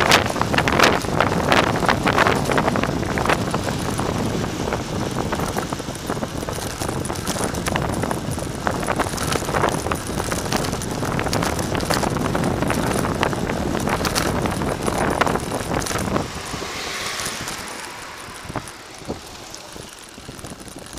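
Wind buffeting the microphone of a bicycle-mounted camera on a fast downhill run, with frequent knocks and rattles from the bike going over the road. The wind noise eases off about sixteen seconds in.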